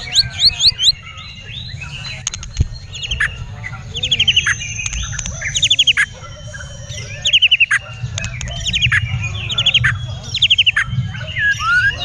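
White-rumped shama song: loud bursts of rapid, high sweeping notes, repeated every second or two. A low rumble runs underneath.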